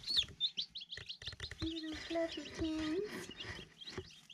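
Newly hatched chicks peeping: many quick, high cheeps overlapping. A soft, low hummed tone comes and goes in the middle.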